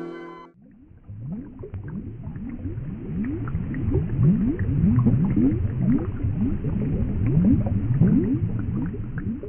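Underwater bubbling sound effect: many quick upward-gliding bubble blips over a low rumble, swelling toward the middle and thinning out near the end. In the first half-second a sustained synth chord cuts off.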